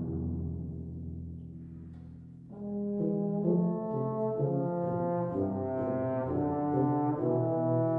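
A low timpani roll fades out over a held low tuba note. About two and a half seconds in, a tenor trombone enters with legato-tongued melodic notes, joined by the tuba playing short detached notes below it.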